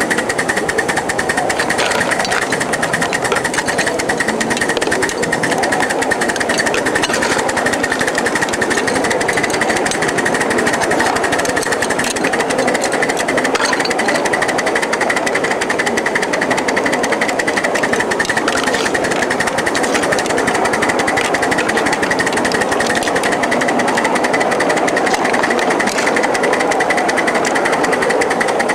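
A 1-inch scale live-steam 0-4-0 switcher and its riding car running steadily along the track: a continuous rapid rattling clatter of wheels and running gear, with a steady hiss.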